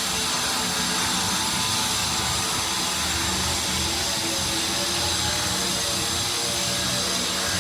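A steady mechanical whir, with an even hiss and a constant low hum that holds at one pitch throughout.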